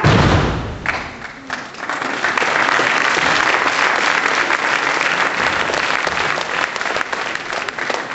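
Audience applauding in a hall, building from a scatter to full, steady clapping and thinning near the end. A heavy thud comes right at the start.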